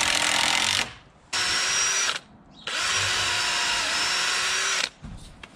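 Power drill driving screws into a wooden fence rail where it meets a post. It runs in three bursts: the first stops about a second in, a short one follows, then a longer one of about two seconds that ends near the end.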